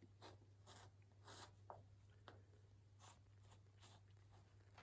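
Faint scratching and rustling of cats' paws and claws on a cotton sheet and loose fabric hexagon patchwork pieces: a string of short, irregular scrapes.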